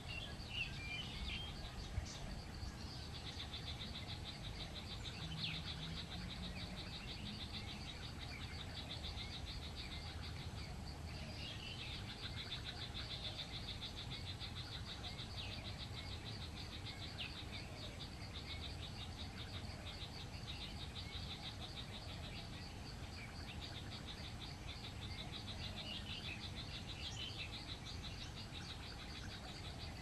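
Tropical forest ambience: a steady, fast-pulsing high trill from an insect or frog chorus sets in about three seconds in, with short bird chirps now and then.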